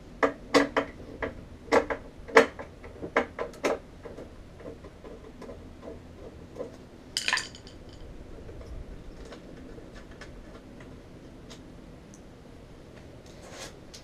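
Screwdriver and screws clinking against the ice machine's sheet-metal panel as the screws are taken out: a dozen or so sharp metallic clicks over the first four seconds, then one longer scraping rattle about seven seconds in.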